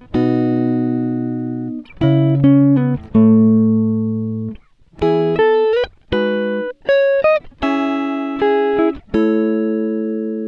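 Guitar playing clean picked chords and single notes in short phrases, each ringing a second or two before it stops, with brief gaps between.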